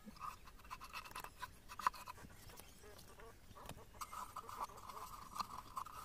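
Faint, rapid scraping and clicking of a hand working against a wooden beehive box. A faint steady tone sits in the background and is plainest in the second half.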